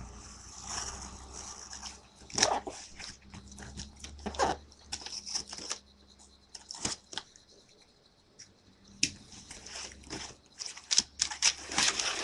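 A shipping package being opened by hand: irregular rips, scrapes and rustles of cardboard and packing, with a quieter pause in the middle.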